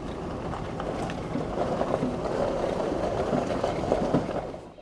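Car driving slowly on a gravel road: a steady rumble of tyres and body, with many small crunches and pops of gravel under the tyres.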